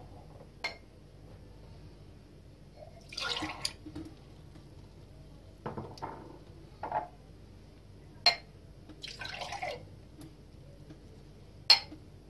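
Unripe grape juice (verjuice) poured in two short splashes from one glass tumbler into another, between clinks and knocks of the glasses being handled and set down on a hard countertop. The sharpest knock comes near the end.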